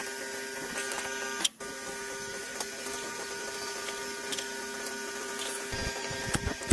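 A small motor running with a steady whine, broken off briefly about a second and a half in, with scattered sharp clicks over it.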